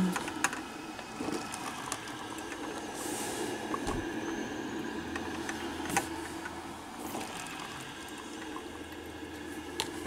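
A 1985 Black & Decker drip coffee maker brewing into its thermal carafe, with a steady watery bubbling and hiss as heated water is pushed through.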